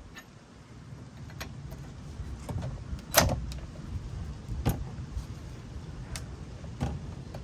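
A series of sharp metallic clinks and knocks, about six over several seconds with the loudest about three seconds in, over a low rumble: wrenches and brake caliper hardware being handled as the front caliper is unbolted and taken off.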